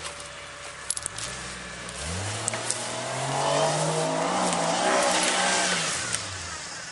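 Off-road 4x4's engine revving up sharply about two seconds in, held at high revs for a few seconds, then easing off near the end.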